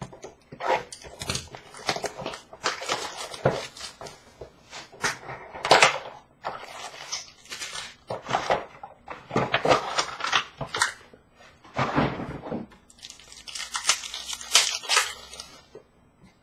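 Hockey card box and packs being torn open by hand, with paper and cardboard tearing and wrappers crinkling in irregular bursts.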